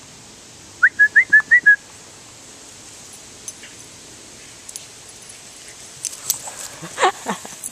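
A person whistles a quick run of six short, high notes to call a dog, over a faint steady hiss of sprinkler spray. Near the end a Boston Terrier makes a flurry of short, rough noises close by.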